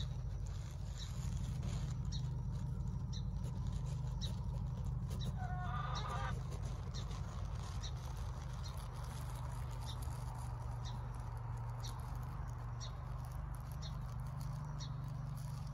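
Outdoor ambience: a steady low hum, a short high tick repeating about once a second, and a brief animal call about six seconds in.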